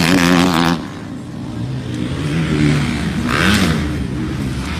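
Motocross dirt bike engines revving on the track, their pitch rising and falling. The sound is loud at first and drops off abruptly under a second in, then carries on quieter, with a short hiss about three and a half seconds in.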